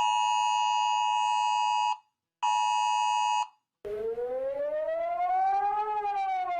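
Emergency alert attention signal: a steady two-tone alarm held for about two seconds, then sounded again for about a second after a short break. Then a siren starts up, rising slowly in pitch and beginning to fall again near the end.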